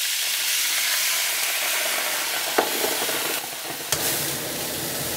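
White wine sizzling and hissing as it is poured into a very hot frying pan of butter, oil and garlic left from searing scallops. A single click comes about two and a half seconds in, and near the end a low rumble joins the sizzle as the wine's alcohol flares up in the pan.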